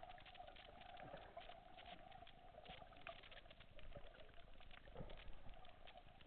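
Faint underwater ambience: a dense crackle of many small clicks over a steady hum.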